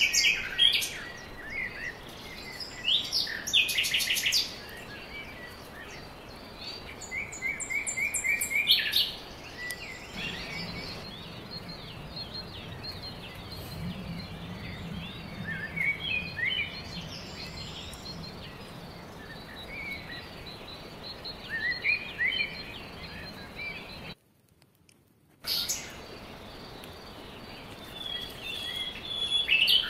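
Small wild birds chirping and calling, with rapid trills and short rising notes coming again and again. The sound cuts out completely for about a second roughly two-thirds of the way through.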